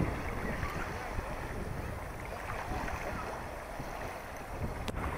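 Strong gusty wind buffeting the microphone, with waves washing onto the shore of the stormy Curonian Lagoon.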